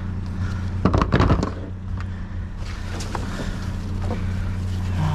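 Junk clattering and knocking as it is rummaged through and handled, with a burst of knocks about a second in, over a steady low engine drone.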